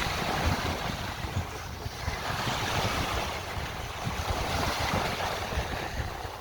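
Sea surf washing in, in slow swells, with wind buffeting the microphone in low, gusty rumbles.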